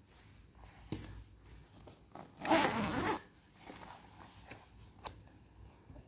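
The side zipper of a black leather boot being pulled once in a quick rasp of under a second, around the middle, with a few faint handling clicks around it.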